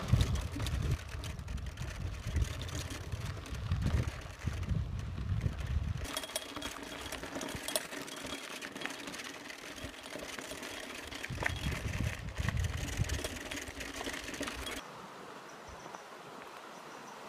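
Bicycle riding on a dirt track: wind buffeting the microphone in gusts over the noise of the tyres rolling, with a steady whir in the middle stretch. About two and a half seconds before the end it cuts to a quieter, even rush of a stream.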